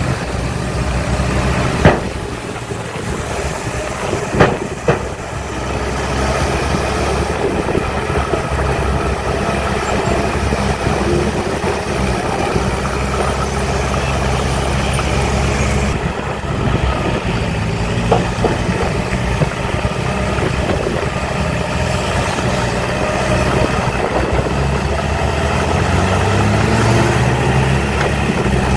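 Heavy diesel earthmoving machinery, a dump truck or bulldozer, running steadily, with a few sharp metallic knocks: one about two seconds in, two close together a few seconds later, and one mid-way. The engine revs up near the end.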